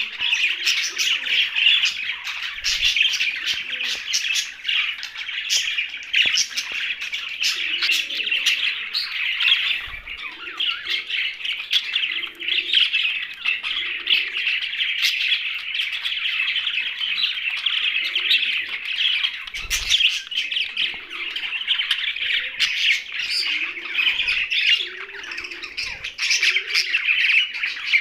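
Young budgerigars chirping and squawking in a dense, unbroken chatter, with a couple of soft bumps along the way.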